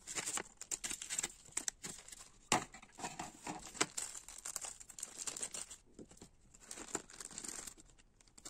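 Small clear plastic zip bag crinkling as fingers work it open, with small clicks, going quiet briefly around six seconds in and resuming for about a second.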